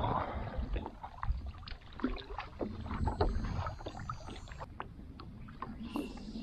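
Small chop slapping and sloshing against a paddleboard hull, with wind rumbling on the microphone and irregular knocks and clicks from handling gear on the board.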